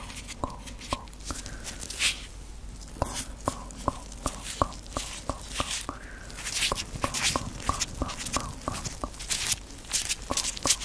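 White rubber gloves worked by hand close to a microphone: quick, rubbery clicks, two or three a second, with rubbing swishes of glove against glove now and then.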